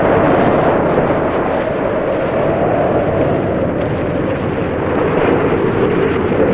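Rough sea: waves breaking and surging, heard as a loud, steady rushing noise with no let-up.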